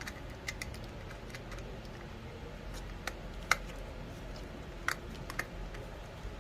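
Small scattered clicks and ticks of a screwdriver and wire being worked into a light switch's screw terminal, with two sharper clicks about three and a half and five seconds in.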